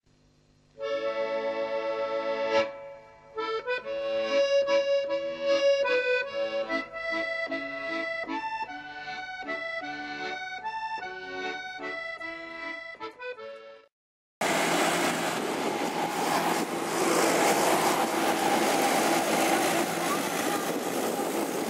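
Accordion music over the opening titles, cutting off just before fourteen seconds. After a brief silence comes a loud, steady outdoor noise in which a vintage tractor's engine runs as the tractor drives along the street.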